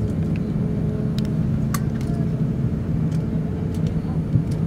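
Cabin noise aboard an Airbus A350-900 taxiing: a steady low rumble and hum from its Rolls-Royce Trent XWB engines at taxi power and the rolling aircraft, heard from inside the cabin. A few sharp clicks or rattles of cabin fittings, the loudest a little under two seconds in.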